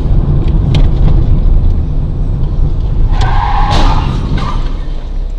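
Loud low rumble of a car on the road, with a few sharp clicks in the first second and a short harsh noise about three to four seconds in.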